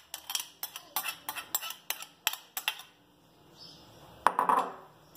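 A spoon tapping and scraping against a mixing bowl, about four to five strikes a second, as grated carrot is knocked off into it; the tapping stops about three seconds in. Near the end comes a single sharp knock followed by a brief rustle.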